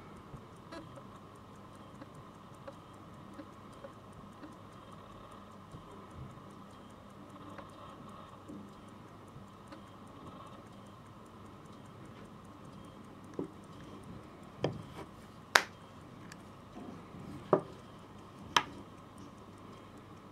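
Mechanical 17-jewel Swiss pocket watch ticking steadily. In the second half come several sharp clicks and knocks as the metal case is handled and closed.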